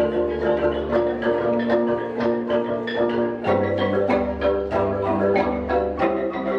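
Music: quick, rapid struck notes on a mallet percussion instrument over low held bass notes, the bass changing about three and a half seconds in.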